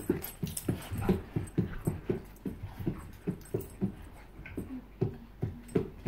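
Dogs panting hard in quick, rhythmic breaths, about four a second, while wrestling in play, with a brief whine about two-thirds of the way through.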